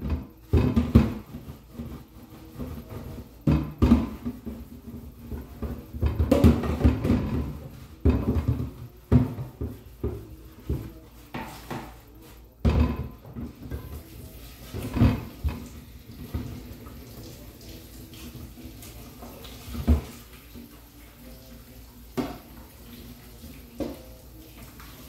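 Dishes and kitchenware being handled and scrubbed at a kitchen sink: irregular clatter and knocks, busy for the first half, then only a few separate clinks.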